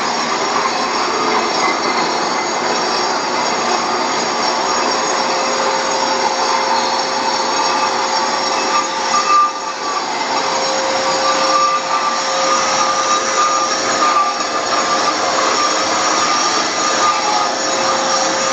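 Bosch concrete grinder with a diamond wheel grinding down high spots on a concrete slab, running steadily together with the whine of a dust-extraction vacuum, with a brief dip in the noise about halfway through.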